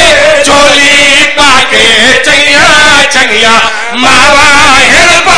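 Men's voices chanting a sung religious recitation loudly over a microphone, a lead reciter with a second voice joining in, with a brief pause about three and a half seconds in.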